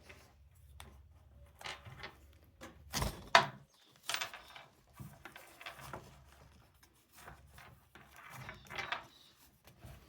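Light handling clicks and knocks from a magnetic quick-release buckle being worked on a leather chin strap, with one sharper click about three seconds in.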